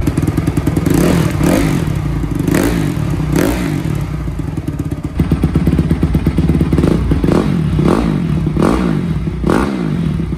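Honda CRF250R single-cylinder four-stroke engine idling and blipped repeatedly, first through the stock twin mufflers and, from about halfway, through a newly fitted FMF PowerCore 4 single muffler. The second run sounds a little deeper and definitely louder.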